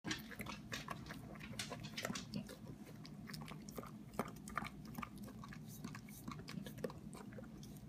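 Basset hound licking leftovers off a pan: a quick, irregular run of wet licks and smacking clicks.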